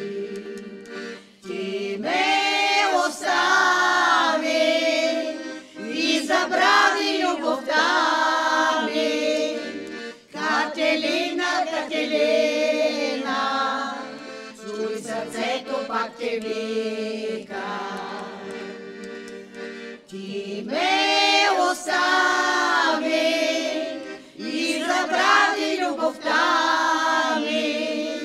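Group of voices singing a folk song over instrumental backing that holds a steady low note.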